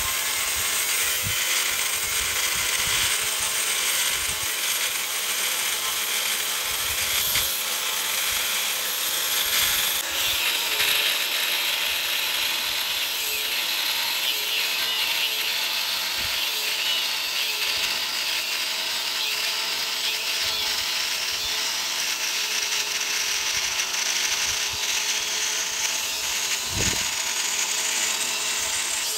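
Angle grinder with an abrasive cut-off disc cutting into a rusty steel I-beam. It makes a steady, continuous grinding, its pitch creeping slowly upward over the second half.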